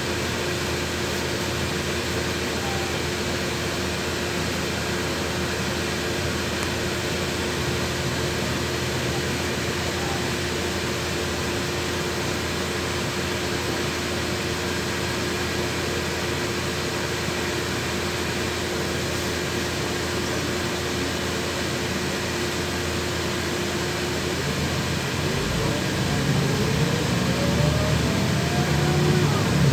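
Inside the cabin of a LiAZ 6213.21 articulated city bus idling in traffic: a steady engine and blower hum. About 25 seconds in it pulls away, getting louder, with several rising whines as the diesel engine and drivetrain speed up.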